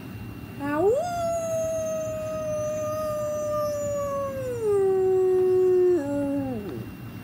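A person imitating a wolf howl with their voice: one long howl that glides up at the start, holds nearly level, steps down in pitch twice and trails off near the end.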